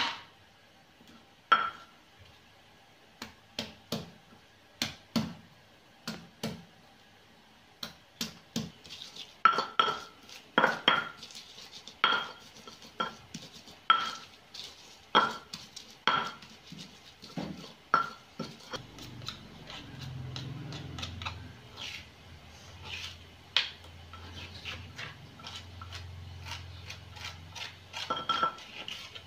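Stone pestle pounding shallots, garlic and chilies in a volcanic-stone mortar (cobek and ulekan): sharp stone-on-stone knocks with a slight ring, roughly one a second. In the later part it turns to steadier grinding and rubbing as the spice paste for nasi goreng is crushed.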